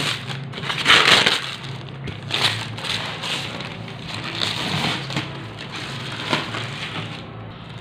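Clear plastic wrapping being pulled and crumpled off a cardboard printer box, a run of irregular crinkling and crackling, loudest about a second in.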